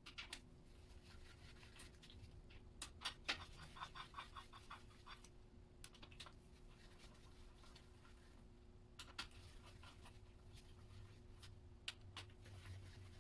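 Faint scattered clicks and light taps of work on a stripped-down engine, with a quick run of about ten even ticks around four seconds in, over a low steady hum.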